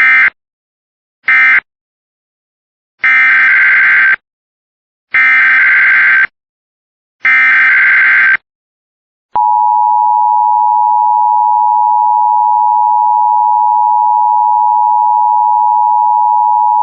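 Emergency Alert System test signal: two short data bursts, then three one-second SAME header data bursts, the warbling digital screech that encodes the alert. About nine seconds in, the steady two-tone EAS attention signal (853 and 960 Hz) begins and holds.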